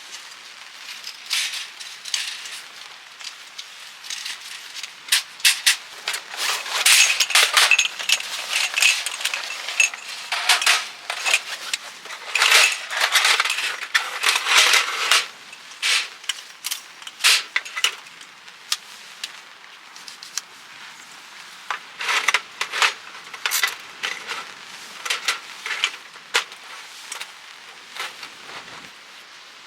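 Gear being handled: an irregular run of clicks, clinks, rattles and rustles, busiest in the middle and again near the end.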